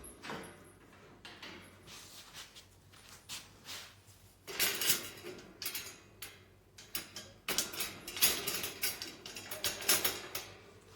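Dog playpen panels clattering and knocking as they are handled and fitted together, in irregular bursts of clicks that are busiest in the middle and again near the end.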